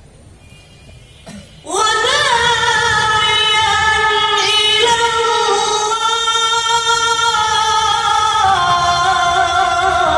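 Quran recitation in the melodic qirat style: a male qari's voice, amplified over a microphone and loudspeakers, begins about two seconds in and holds one long, high, ornamented phrase. The pitch steps down near the end.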